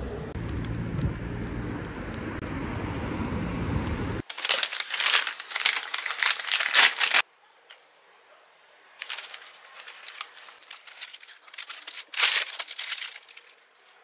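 White paper wrapper crinkling and rustling in bursts as hands unwrap a roasted sweet potato from it, starting about four seconds in and resuming after a short pause. Before that there is a steady low hum of background noise.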